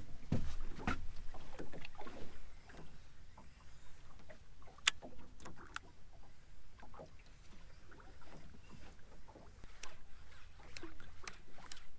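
Water lapping and slapping against a small boat's hull, with scattered small knocks and clicks. A single sharp click about five seconds in is the loudest moment.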